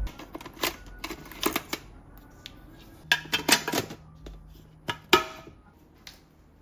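Irregular light clicks and knocks, a few sharper ones about three to five seconds in, over soft background music.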